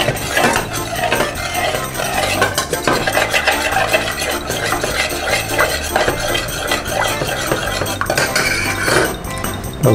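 A metal spoon stirring tomato sauce in a small stainless steel saucepan: a quick, continuous run of clinks and scrapes against the pot.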